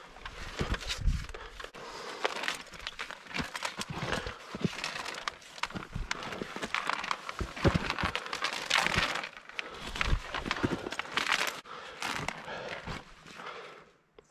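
Rock scrambling on a chained route: irregular scuffs, knocks and crunches of boots and gloved hands on granite and on a steel chain, with rustling close to the microphone. The sound drops out briefly near the end.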